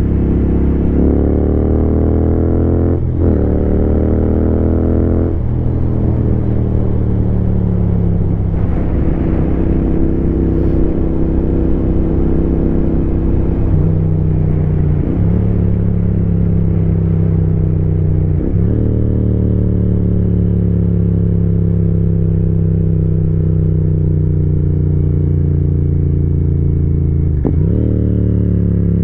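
Royal Enfield Continental GT 650's parallel-twin engine and exhaust under way. The revs climb and drop sharply at each upshift several times, then fall slowly as the bike rolls off, with a quick rise near the end at a downshift.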